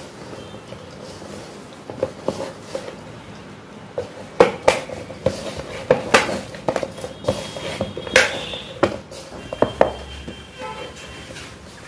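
Hands mixing and pressing rice-flour and jaggery dough in a stainless steel bowl: irregular knocks and scrapes against the metal, with the bowl ringing faintly. The knocking starts about two seconds in and comes thickest in the middle.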